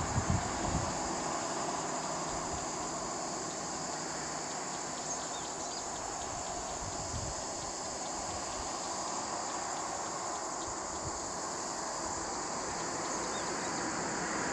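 Steady high-pitched insect chorus, an unbroken buzz. A little low wind rumble on the microphone in the first second.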